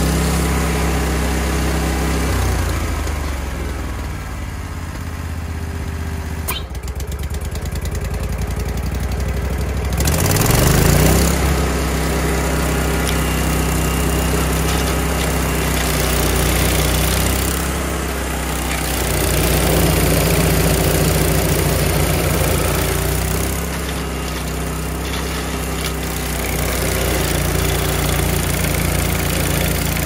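Vermeer SC252 stump grinder running hard as its cutter wheel grinds down a tulip poplar stump. The engine's pitch rises about ten seconds in, and the level swells and eases as the wheel works across the stump.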